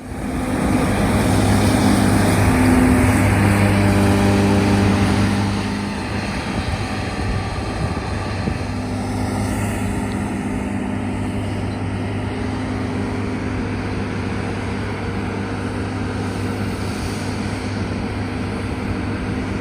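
John Deere S-series combine harvester running steadily in wheat, a loud engine and machinery hum with a steady low drone. It is a little louder for the first five or so seconds, then settles slightly lower.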